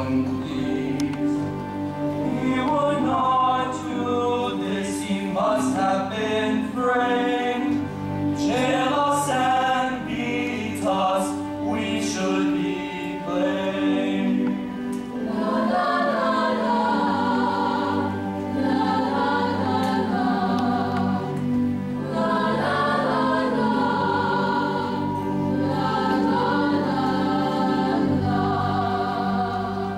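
Musical-theatre cast singing together as a choir over instrumental accompaniment, with shorter phrases in the first half and long held notes from about halfway through.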